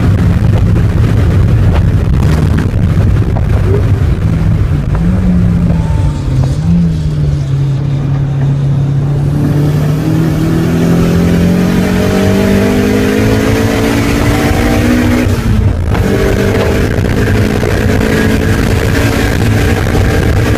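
Mazda Miata's four-cylinder engine heard from inside the cabin under heavy wind and road noise. First it runs at speed; then it drops in pitch under braking, with two short throttle blips on the downshifts. From about 7 seconds in it climbs steadily in pitch under hard acceleration, breaks briefly for an upshift about 15 seconds in, and climbs again.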